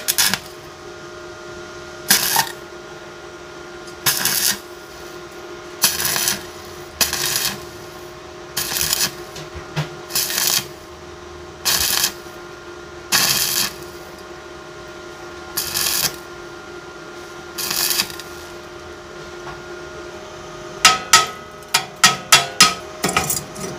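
Stick (MMA) welding on thin 1 mm steel box section in short bursts of arc crackle, about one every one and a half to two seconds, over a steady hum. Near the end a hammer chips slag off the fresh bead in a quick run of sharp taps.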